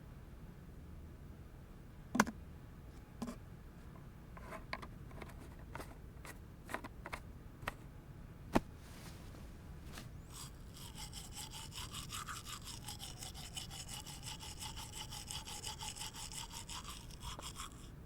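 A few sharp clicks and taps, then from about ten seconds in a fast, steady back-and-forth scrubbing sound.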